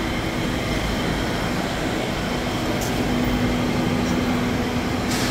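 Steady low rumble of a car engine idling, with a steady hum that grows stronger about halfway through.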